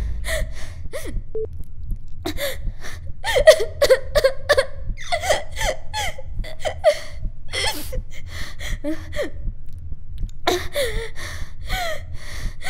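A woman crying: gasping breaths, sobs and whimpers in broken bursts, over a steady low hum.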